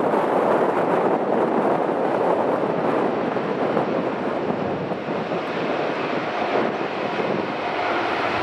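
Boeing 787-8 Dreamliner's jet engines making a steady roar as the airliner rolls along the runway, with wind buffeting the microphone.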